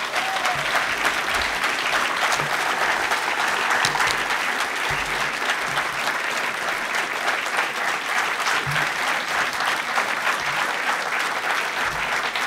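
A large seated audience applauding: a steady, even round of clapping.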